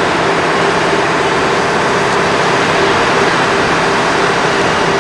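Heavy crane engine running steadily: a loud, even drone with a constant hum.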